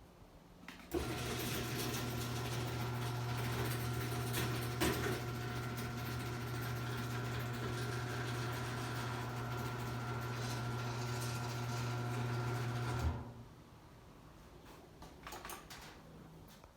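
Electric garage door opener motor running with a steady hum for about twelve seconds, starting and stopping abruptly. The door is disconnected at the emergency release, so the trolley travels without re-engaging the door.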